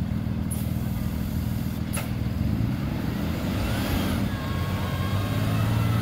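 Vehicle engines rumbling steadily under load as an SUV tows a school bus stuck in packed snow on a strap, swelling somewhat louder in the second half.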